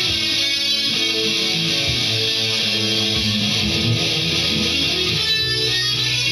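Electric guitar playing a slow melodic line of held notes that change about every half second, over fuller music.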